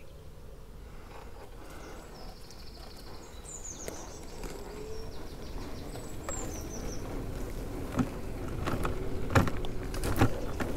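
Small birds singing in the trees, with short high trills and chirps, over a low steady rumble of outdoor background noise. Several sharp knocks come near the end.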